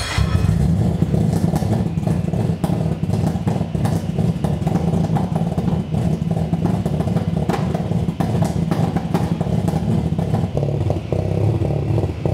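Nissan RB25 straight-six running at idle through a loud exhaust on its first startup, a steady low running note broken by frequent irregular crackles.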